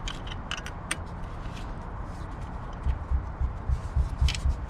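Handling sounds from fitting a door release cable into a new interior door handle: a few light clicks, then about three seconds in a quick run of dull low bumps, about four a second.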